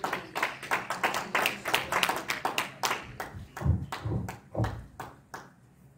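Congregation clapping: a quick, irregular patter of hand claps that thins out and stops a little after five seconds in, with a few low thumps near the end.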